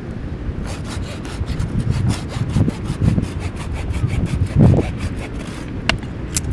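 Hand saw cutting wood in quick, even strokes, about five a second, stopping about a second before the end, over a low rumble of wind on the microphone.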